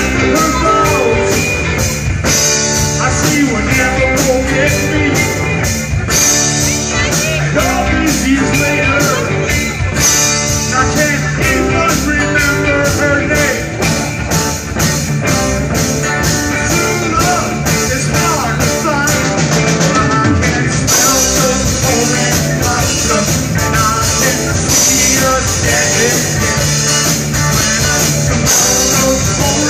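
Live band playing an up-tempo rock number on acoustic guitar, electric guitars and a drum kit, with a steady drum beat.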